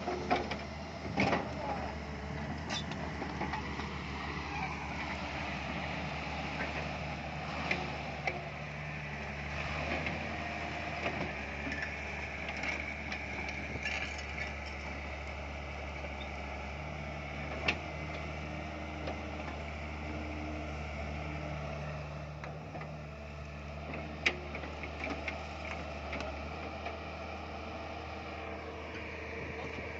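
Komatsu PC200 hydraulic excavator's diesel engine running steadily, with a few sharp metallic clanks as the boom and bucket are worked.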